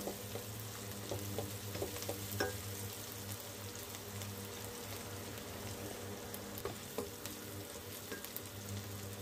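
Chopped onions and green chillies sizzling in ghee in an aluminium kadai, with a wooden spatula stirring and scraping against the pan now and then, over a steady low hum.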